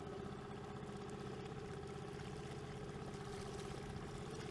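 6 hp Yamaha outboard motor running steadily under way, a constant drone, with water rushing past the inflatable hull.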